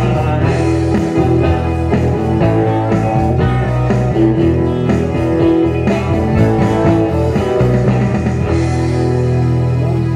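Live rock band playing: electric guitars, electric bass, keyboard and drum kit. From about eight seconds in the band holds a sustained chord.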